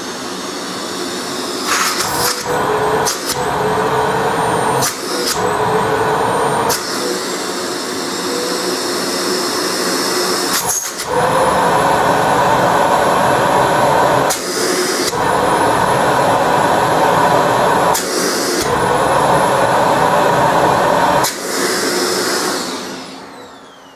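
ETA 0502 Mio II 700 W cylinder vacuum cleaner running, growing louder over the first couple of seconds, its sound breaking abruptly about nine times with a faint rising whistle after some of the breaks. Near the end it is switched off and the motor winds down with a falling whine.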